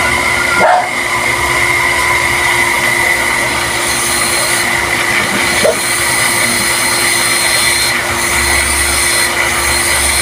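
Electric water pump running with a steady whine, not yet drawing water: it is still pushing air out of its suction line before it primes. Its sound keeps changing, the hiss coming and going a few times and a low hum coming in near the end.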